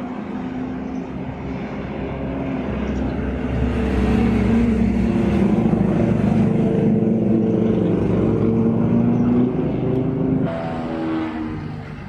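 Motorboat engine running, getting louder about four seconds in, then easing off near the end with its pitch falling.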